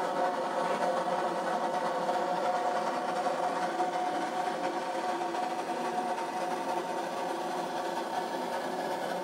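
Light-aircraft engine heater running with a steady mechanical hum made of several constant tones, as its blower pushes air out through the flexible hose.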